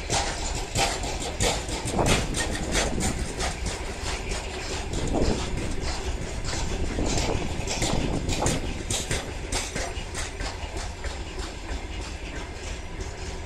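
Heavy freight train of covered hopper wagons rolling slowly past, about 6000 tonnes. Its wheels clack and clank irregularly over the rail joints, and there are a few brief squeals from the running gear.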